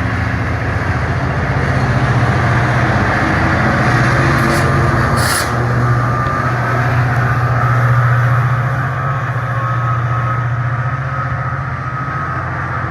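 Passenger train with a diesel locomotive passing through the station: a steady low engine rumble with rail and wheel noise.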